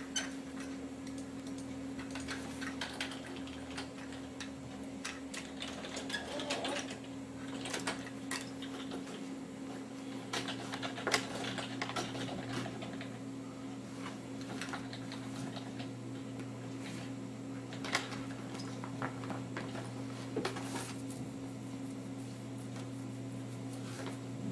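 Light, irregular clicks and knocks of plastic toys being handled and bumped together by a baby, a few louder ones now and then, over a steady low hum.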